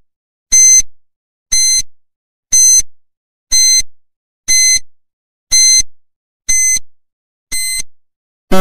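Countdown timer sound effect: short high-pitched electronic beeps, one each second, ticking off the seconds. Right at the end a louder, lower buzz begins as the count runs out.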